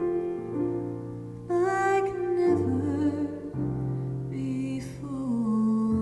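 Female vocalist singing with digital piano accompaniment. The piano plays alone at first and the voice comes in about a second and a half in, held notes wavering with vibrato, with a breath taken before the last phrase.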